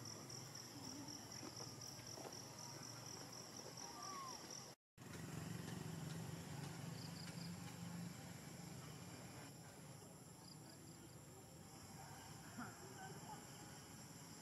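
Faint outdoor ambience with an insect trilling in a high, rapid pulse for the first four seconds or so. The sound cuts out completely for a moment just before five seconds in. After that the same insect gives only a few short bursts of pulses.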